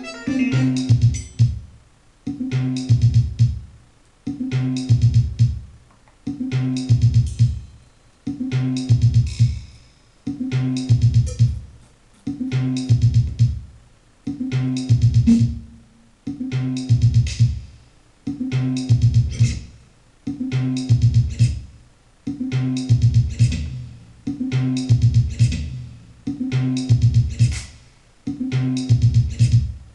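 A short, bass-heavy sequenced loop on an electronic instrument driven by a MIDIbox SEQ V3 step sequencer. The phrase restarts about every two seconds and dies away before each restart.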